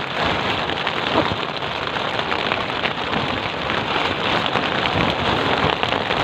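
Steady rain falling on a clear plastic sheet stretched close overhead: a dense, even patter of countless drops hitting the plastic.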